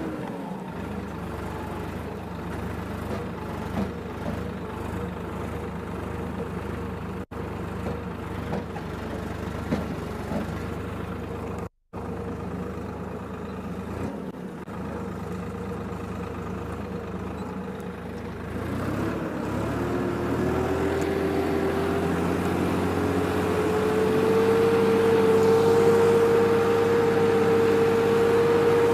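Swaraj 963 FE tractor's diesel engine running steadily while it pulls a reversible mouldboard plough. About two-thirds of the way through, the engine note slowly rises and grows louder.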